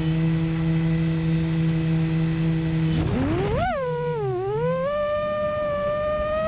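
6-inch FPV quadcopter's four 2507 1850 KV brushless motors spinning three-blade props: a steady low hum at low throttle, then about three seconds in the throttle is raised and the pitch climbs sharply, dips, and settles into a steady higher whine.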